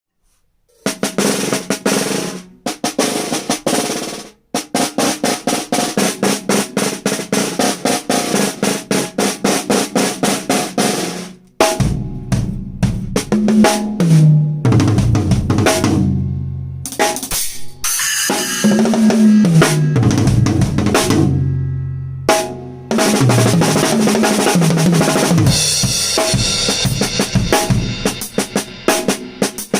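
Yamaha Hip Gig drum kit with a new Remo Powerstroke P3 Clear head being played for a sound check. It opens with about ten seconds of fast, even strokes, then moves to fills whose low drum notes step down in pitch, mixed with bass drum and bright cymbal-like wash in the second half.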